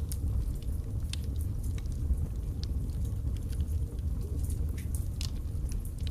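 Birch logs burning in a fireplace, crackling: irregular sharp pops and snaps over a steady low rumble of the flames.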